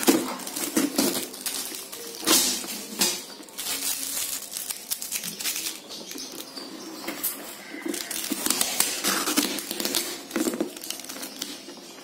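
Brown packing tape being peeled and ripped off a plastic storage box in a series of short, uneven pulls.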